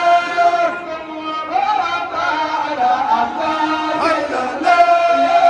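Men chanting a devotional song together, amplified, with long held notes at the start and again near the end and shorter rising and falling phrases between.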